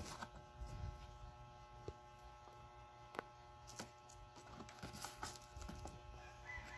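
Faint handling of a cardboard router box and its plastic wrap and pulp tray: a few soft scattered taps and rustles over a steady low hum.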